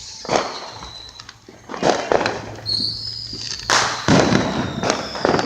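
Neighbourhood consumer fireworks going off: a string of sharp bangs, one every second or so, each echoing away, with a thin high whistle drifting slightly down in pitch through the second half.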